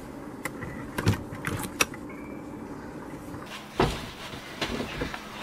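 Scattered clicks and knocks, then one louder thump about four seconds in followed by a few softer knocks: someone handling and moving through a motorhome's entry door.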